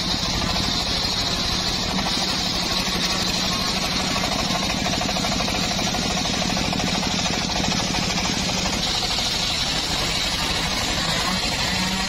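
Engine-driven homemade circular saw ripping lengthwise through a log. It gives a steady high-pitched cutting hiss over the low, even running of the engine.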